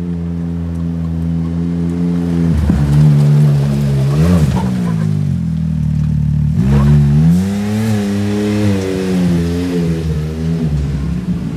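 Can-Am Maverick X3's turbocharged three-cylinder engine, breathing through an MBRP exhaust with its quiet cores removed. It idles steadily, then revs up and down in several short throttle blips as the side-by-side is driven slowly.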